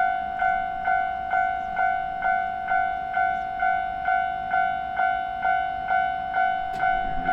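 Japanese level-crossing alarm: the electronic crossing bell rings in a steady, even rhythm of about two strikes a second, warning of an approaching train. Near the end a train's low rumble begins to come in.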